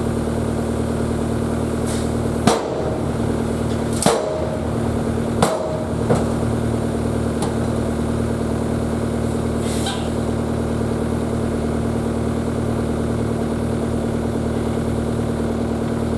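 Diesel engine of heavy equipment running at a steady speed, with a constant drone. Four sharp knocks come between about two and six seconds in.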